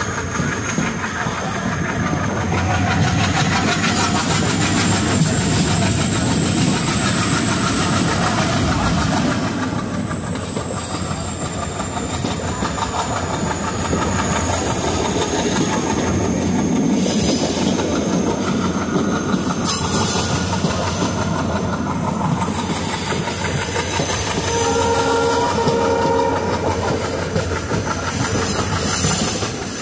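Passenger train running, heard from on board a coach: a steady rumble and clickety-clack of wheels on the rails, with a thin high whine that rises and then falls over several seconds. A short horn sounds near the end.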